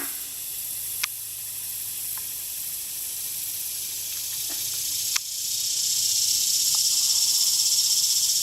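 A steady high-pitched hiss that swells louder about five and a half seconds in, with two sharp clicks, one about a second in and one about five seconds in.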